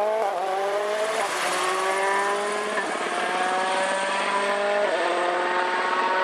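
Rally car engine accelerating hard through the gears. The pitch climbs steadily in each gear and drops sharply at three upshifts, about a second, three seconds and five seconds in.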